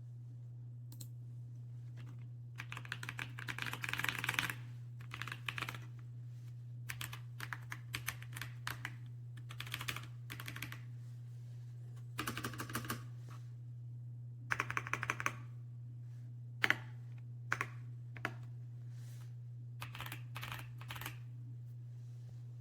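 Typing on the RK Royal Kludge S98 mechanical keyboard: quick runs of key clicks in short bursts with pauses between them, a keyboard the reviewer calls definitely not quiet. A steady low hum runs underneath.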